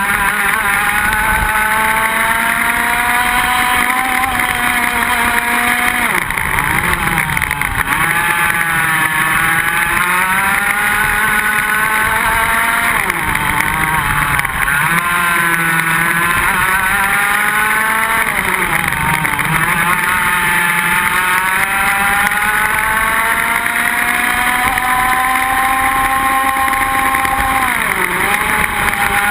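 Iame X30 125cc two-stroke kart engine at racing speed, heard onboard: the engine note climbs along each straight and drops sharply under braking for a corner, about four times.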